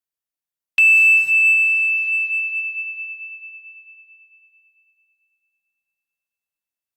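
Synthesized 'keen' ringing sound effect: a single high-pitched tone that strikes suddenly about a second in, with faint higher overtones, then fades away over about four seconds with a slight rapid pulsing.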